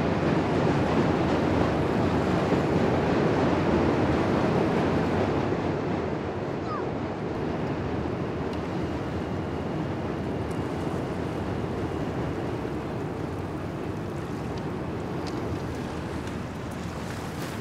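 River water washing against a pebble shore, with wind: a steady, even wash that eases a little about six seconds in.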